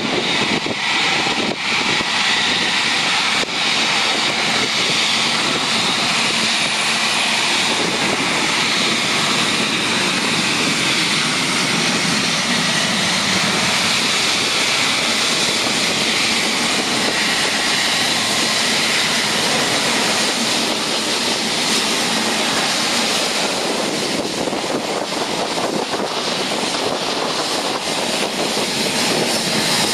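Engine Alliance GP7200 turbofans of an Air France Airbus A380 at taxi power: a steady jet whine and rush as the airliner rolls past.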